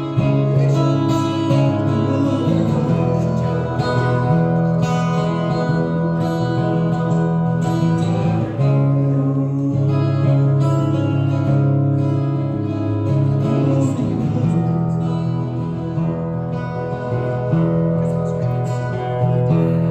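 Acoustic guitar strummed in a steady rhythm, with the chords changing every couple of seconds.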